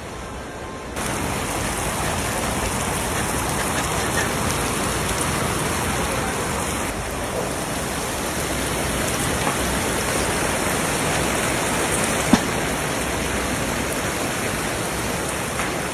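Hot oil sizzling steadily in a giant wood-fired cauldron as chickpeas and other ingredients are tipped onto the carrots. The sizzle jumps louder about a second in, and there is one sharp click about three-quarters of the way through.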